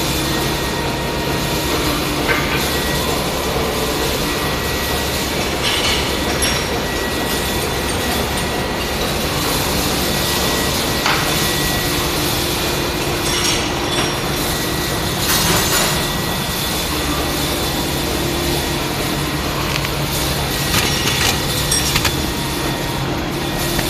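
Steady machinery drone with a low hum, broken by occasional short clinks and knocks every few seconds.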